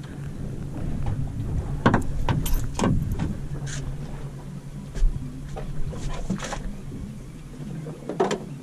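A boat's engine idling with a steady low hum, while knocks and clatters of fishing gear being handled on the deck come several times.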